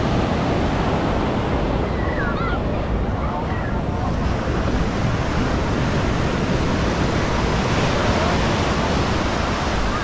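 Ocean surf breaking and washing up on a sandy beach, a steady rushing wash, with wind rumbling on the microphone.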